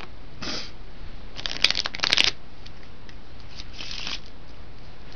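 A deck of playing cards being shuffled by hand: bursts of rapid card flicks, the longest and loudest about a second and a half in, with shorter ones before it and near the end.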